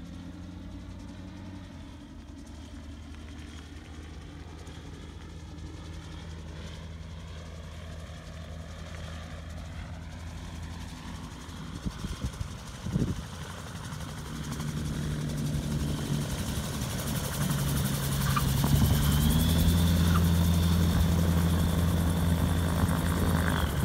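American Ranger gyroplane's propeller engine and rotor running steadily, growing much louder as the aircraft comes in low and rolls along the runway close by. A few brief knocks come about halfway through, and the engine note steps up in pitch near the end.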